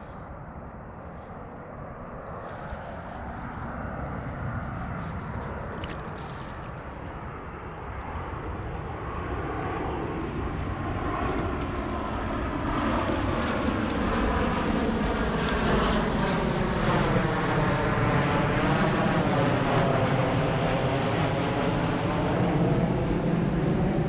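An airplane flying over, its engine drone building steadily and loudest in the second half, with a slowly sweeping, wavering pitch as it nears.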